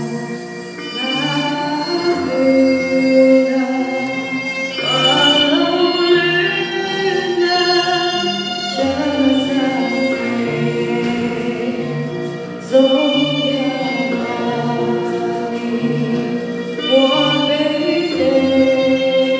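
A woman sings a slow song into a microphone over sustained, string-like instrumental accompaniment. The chords change about every four seconds.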